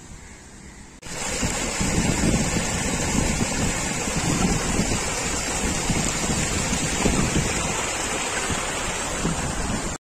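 Water rushing and splashing down a small rocky cascade: a loud, steady rush that starts suddenly about a second in.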